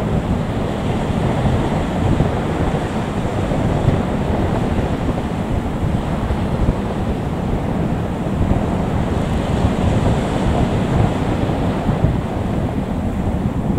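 Wind buffeting the microphone: a steady, low rushing rumble with no clear engine tone.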